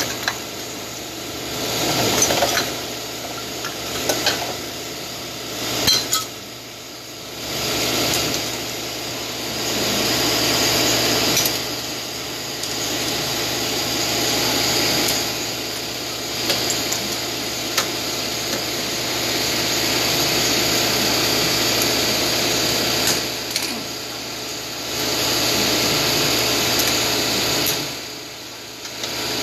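Metal tools clanking and knocking against car parts during transmission work, over a steady mechanical hum.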